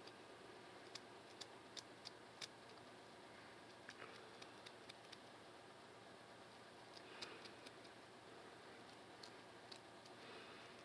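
Faint, irregular little ticks and scrapes of a plastic comb's pointed tail scratching along a dry, flaky scalp at a braid part, loosening dandruff.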